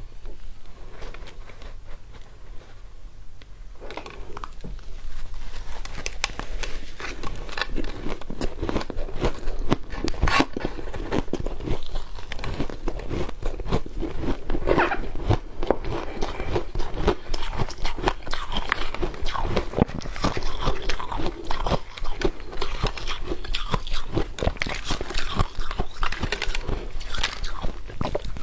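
Frost being bitten and chewed close to the microphone: dense, irregular, squeaky crunching, lighter for the first few seconds and then continuous.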